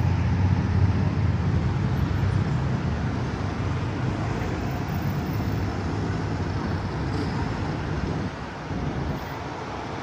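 Road traffic going round a roundabout: cars and motorcycles driving past, with a low engine rumble that is loudest in the first few seconds and then eases.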